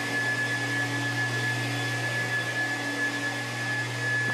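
Rented cellulose insulation blowing machine running: a steady motor hum with a thin, high, constant whine over an even rush of air.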